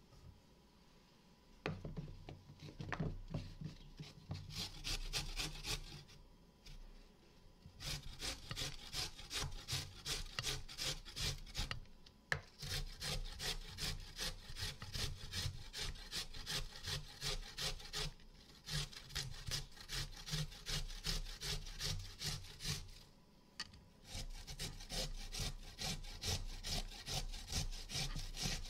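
Fresh ginger root grated on a stainless steel box grater standing on a wooden cutting board: quick, rhythmic rasping strokes, broken by a few short pauses.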